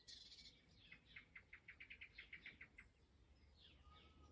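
Faint birdsong: a quick trill of repeated chirps from about a second in to nearly three seconds, with a few short high calls around it.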